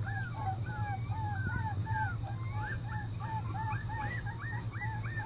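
Young puppies whining in a quick run of short, high, rising-and-falling whimpers, about three a second, while trying to scramble up a step. A steady low hum lies underneath.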